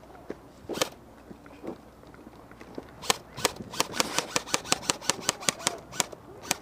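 Airsoft gun firing: a single shot about a second in, then a rapid, even string of shots at about six a second through the second half.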